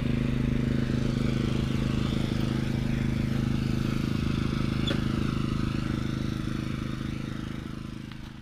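Small engine running steadily with an even hum, fading out near the end.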